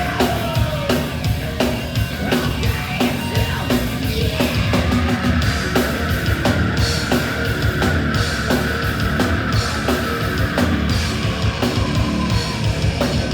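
Heavy metal band playing live: distorted guitars over fast, dense drumming, with one long held high note through the middle.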